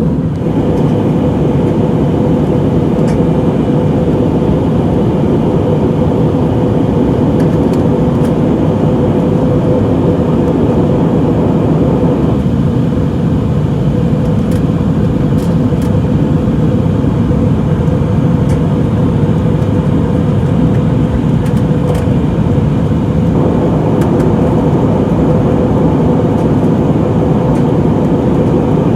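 Steady cabin noise inside an Airbus A320neo in descent: a continuous rush of air and hum from its CFM LEAP-1A engines, with a steady mid-pitched tone. The tone and the upper part of the noise ease about twelve seconds in and come back about eleven seconds later.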